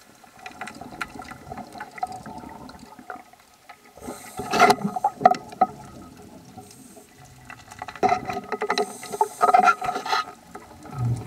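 Underwater bubbling and gurgling from a scuba diver's exhaled breath: two louder stretches of bubbles, about four seconds in and again about eight seconds in, with faint crackling between.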